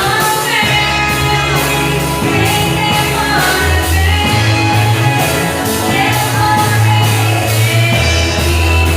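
Band playing a rock-style worship song with a lead singer, bass and drums keeping a steady beat.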